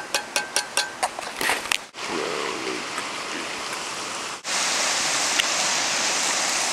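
Creek water rushing steadily, louder and brighter after a cut about four and a half seconds in. In the first two seconds a quick series of sharp taps, about five a second, sounds over it.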